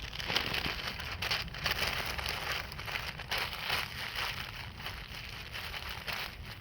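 Wood campfire crackling steadily, a dense run of small pops and hiss with no pauses, over a low wind rumble.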